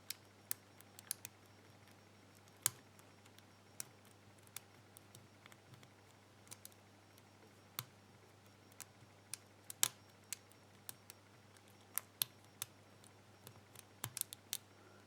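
Shallow-hook lock pick clicking and ticking against the wafer tumblers of a Fischer wafer bike lock as it is picked under tension: small irregular clicks, a few sharper than the rest.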